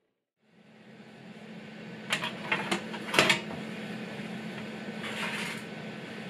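Steady hum of a running kitchen oven, with a few sharp clicks and clatters about two to three seconds in and a scraping rustle about five seconds in as the oven is opened and the glass baking dish on its metal tray is handled.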